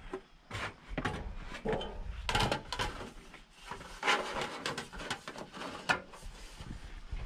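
Cut metal siding panel being handled and test-fitted into place: irregular scrapes, rattles and knocks of sheet metal.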